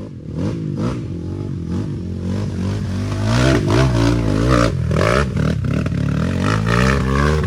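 A small trail motorcycle's engine revving up and down repeatedly, with knocks, as the rider tries to climb over tree roots.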